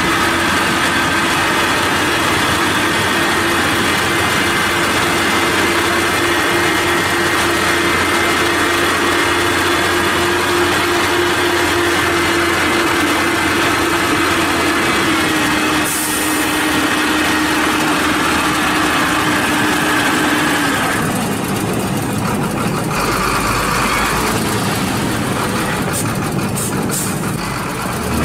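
Diesel engine of a Howo three-axle dump truck running at steady raised revs with a steady tone while its hydraulic hoist tips the loaded bed to dump sand. About twenty seconds in the steady tone stops and the sound turns rougher.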